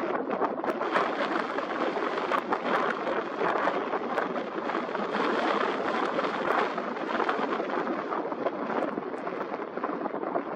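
Steady, crackling wash of small waves over a sandy shore.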